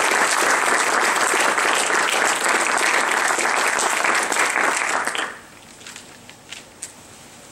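Audience applauding, then dying away about five seconds in, leaving a quiet room with a few faint knocks.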